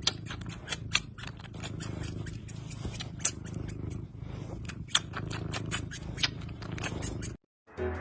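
A cat nibbling and chewing on a person's finger: quick, irregular crisp clicks of its teeth, over a low steady purr. The sound cuts off shortly before the end.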